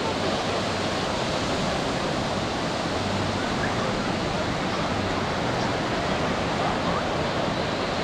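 Surf breaking and washing up a sandy beach, a steady, unbroken rush of water noise, with faint voices from a crowd of bathers mixed in.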